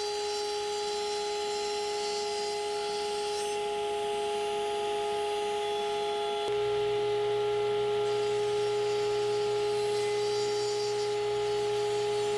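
Woodworking power tool's motor running at a constant speed, with a steady whine; a low hum joins about halfway through.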